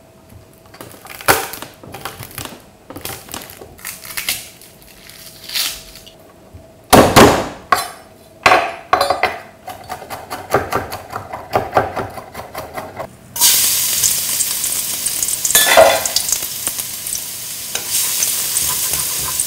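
Knife strikes on a wooden cutting board as a garlic clove is minced, irregular, with a louder cluster about a third of the way in. About two-thirds of the way through, minced garlic going into hot oil in a wok starts sizzling suddenly, with a wooden spatula stirring it.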